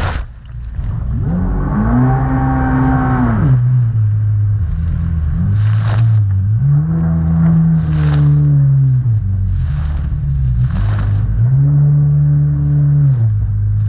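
Jet ski engine surging: it revs up, holds high, then drops back three times as the throttle is worked in rough water. Short hissing bursts of noise break over it several times.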